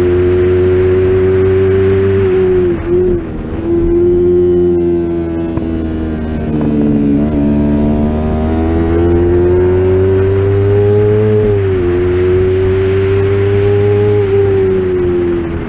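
Yamaha YZF-R25's parallel-twin engine at high revs on a track lap. Its pitch falls several times as the throttle closes and the bike slows for corners, with a brief dip in loudness about three seconds in, then climbs again as it accelerates, stepping down at the gear changes.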